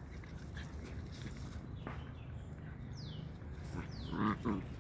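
A puppy whimpering, with two short, loud whines near the end and a few faint, high, falling chirps just before them.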